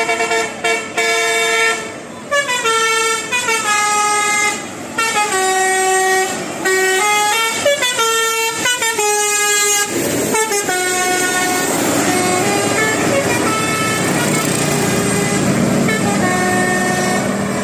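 Bus 'telolet' multi-tone air horn (Basuri type) playing a quick stepped melody, note after note, for about ten seconds, then sounding fewer, longer notes over a noisier background.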